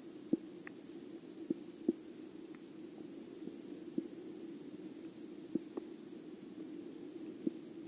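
Muffled underwater sound picked up by an action camera in a waterproof housing: a steady low hum with about seven sharp, irregularly spaced clicks.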